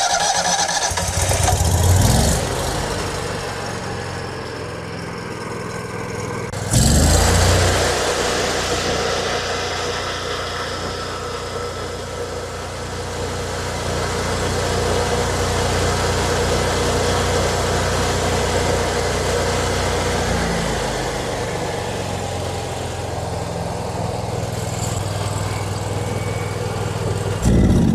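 Kohler fuel-injected engine of a Miller engine-driven welder starting up and running steadily on its newly replaced high-pressure fuel pump. It gets suddenly louder about seven seconds in, and its note changes about twenty seconds in.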